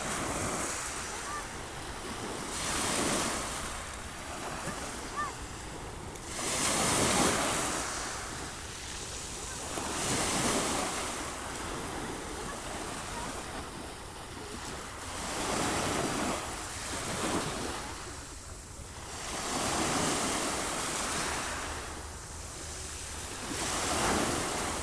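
Sea waves breaking on a shore: a steady wash of surf that swells and falls back about six times, one swell every four seconds or so, the strongest about seven seconds in.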